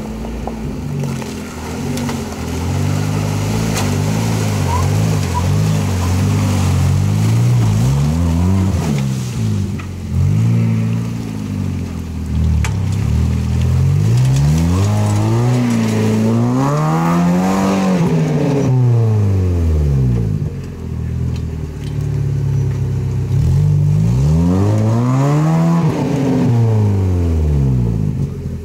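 UAZ off-roader's engine revving hard in repeated surges, pitch climbing and dropping again three or four times, as it strains to climb a steep muddy bank out of a river; it does not make it up under its own power.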